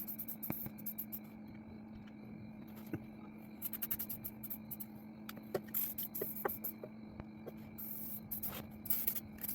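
Light handling noises from hands-on work: scattered soft clicks, taps and scrapes over a faint, steady low hum.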